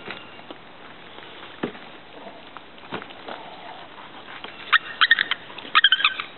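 Bald eagles calling: a fast, high chattering series of piping notes that starts about three-quarters of the way in. Before it come a couple of soft knocks.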